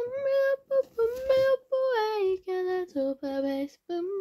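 A girl singing to herself with no accompaniment, a wordless tune of short held notes that drops lower in pitch about halfway through.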